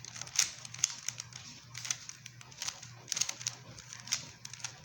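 Irregular plastic clicks and clacks of a Rubik's Cube being handled and its layers turned, over a faint steady low hum.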